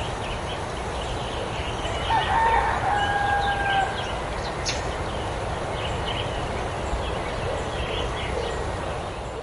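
A rooster crows once, a single drawn-out call about two seconds in, over steady rushing background noise and faint small bird chirps.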